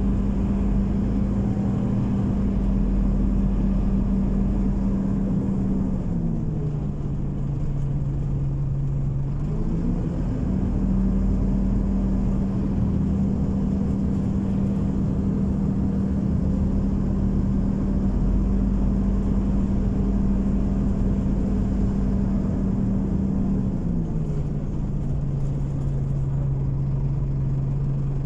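Scania OmniCity city bus heard from inside: the diesel engine and drivetrain hum steadily over a low rumble. The hum drops in pitch about six seconds in, climbs back a few seconds later, and drops again near the end as the bus slows.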